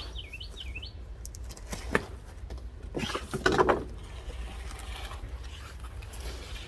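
Handling a boxed flat-pack table: a sharp click about two seconds in, then a louder, brief rustling scrape of cardboard or packaging a second later.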